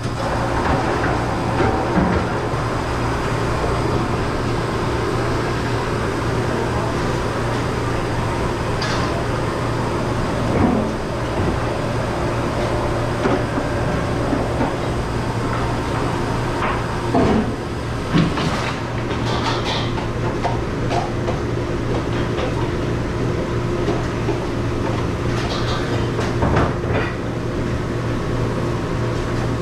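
Steady hum of a commercial dish machine running, with scattered knocks and clatter of plastic dish racks and dishware being handled.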